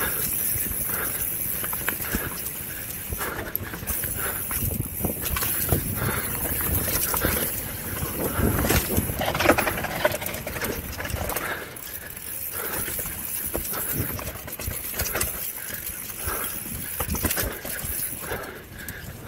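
Mountain bike rolling fast down a dirt singletrack: a steady rush of tyres on dirt with irregular rattles and knocks from the bike jolting over roots and bumps, busiest about halfway through.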